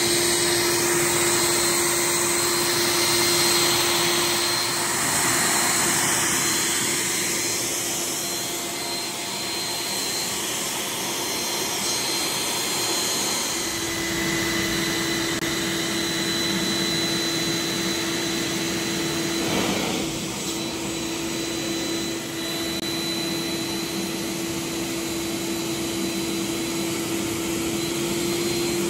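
A vacuum-type motor running steadily, a continuous rushing noise with a steady hum and a faint high whine. The hum drops out about five seconds in and comes back about nine seconds later.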